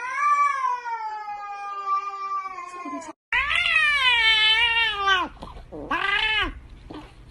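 Cat yowling in long, drawn-out, wavering calls. The first call runs about three seconds and breaks off abruptly. Then comes a second long call, and near the end a short one, over a low steady hum.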